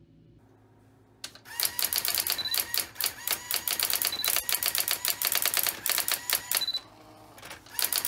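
Brother AX-25 electronic typewriter printing a line of text with its daisy wheel: a fast run of sharp, clattering strikes. The strikes stop briefly near the end, then resume.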